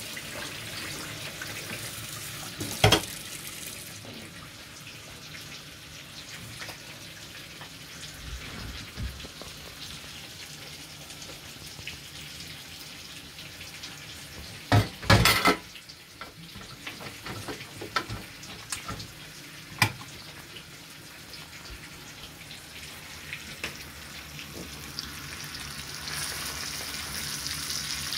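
Tap water running into a metal pan of rinsing rice, then several knocks of pots being handled, about 15 seconds in the loudest. Near the end a rolled pork roast and sausages start sizzling in a frying pan.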